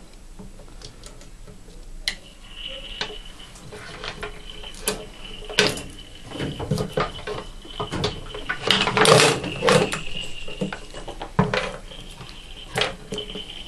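Hands handling a plastic washing-machine water inlet solenoid valve and its test cable: scattered clicks, knocks and rattles, the loudest a little past the middle. A faint thin high whine comes in about two seconds in, drops away and returns near the end.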